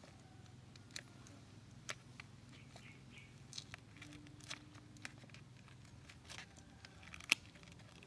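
A knife cutting into a cooked horseshoe crab, clicking and scraping against its shell: faint scattered clicks and scrapes, the sharpest about seven seconds in.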